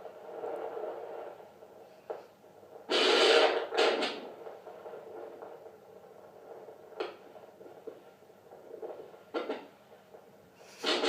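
Fetal doppler speaker hissing with static and no steady beat, broken by a loud crackling rush about three seconds in, then a few short crackles and clicks, with another loud rush near the end.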